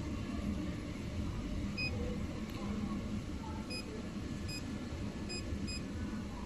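Short electronic key beeps from a fiber laser machine's touchscreen control panel as it is tapped: five brief beeps at uneven spacing, over a steady low hum.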